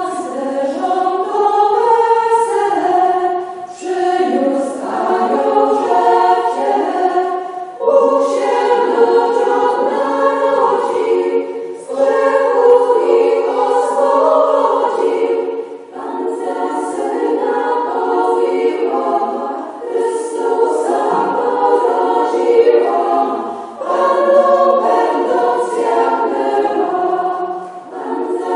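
A mainly female choir singing a Polish Christmas carol unaccompanied, in phrases of about four seconds with brief breaths between them.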